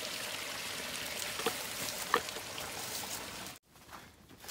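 Filtered water pouring in a steady trickle from a squeeze-filter bag into a plastic bottle, with a couple of light clicks of the bottle being handled; it cuts off suddenly near the end.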